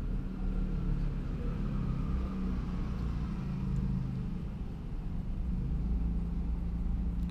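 Low steady rumble of an engine running, its pitch shifting slightly up and down.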